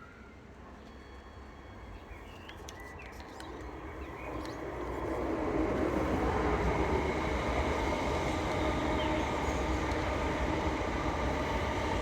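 A steady mechanical rumble with a whine in it. It swells up over about two seconds, starting about four seconds in, and then holds. A few faint bird chirps come before it.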